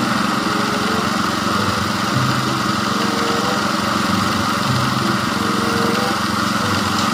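Diesel engine of a semi-tractor running steadily while its tipper trailer is raised and dumps a load of sand, a constant engine hum under a broad rushing noise.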